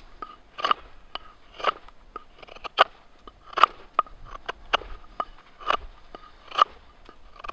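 Knife blade slicing shavings off a wooden mallet handle, one short crisp cut with each pull of the wood across the blade held in a knee lever grip. There are about a dozen cuts, roughly one to two a second, unevenly spaced.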